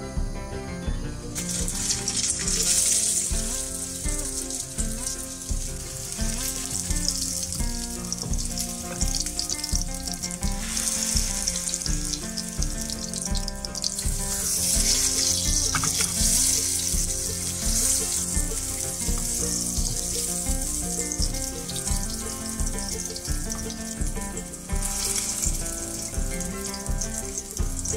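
Ground-meat burger patty sizzling in hot oil in a nonstick frying pan, the sizzle starting about a second and a half in as the patty goes into the pan and swelling louder several times. Background music with a steady beat plays underneath.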